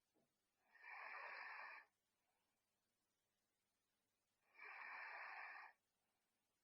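A sleeping girl's soft, airy breaths, the tail end of her snoring: two breaths about four seconds apart, each lasting about a second.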